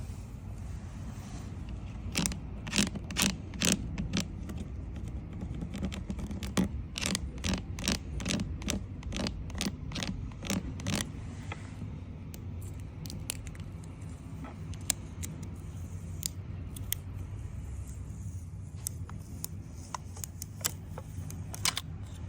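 A quick series of sharp clicks and taps, thickest from about two seconds in and thinning to scattered clicks after the middle, over a steady low hum.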